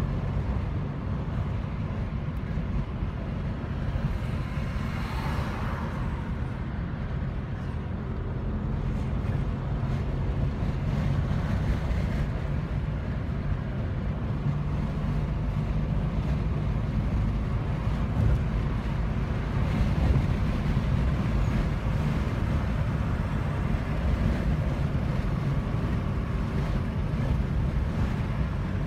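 Steady low rumble of road and engine noise heard inside a moving car's cabin at highway speed.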